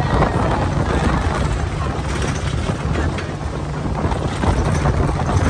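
Open-sided tour vehicle driving along a road: steady engine and road rumble, with wind buffeting the microphone.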